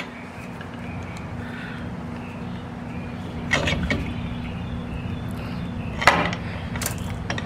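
A steady low mechanical hum, with a few short sharp knocks and clinks about three and a half, six and seven seconds in.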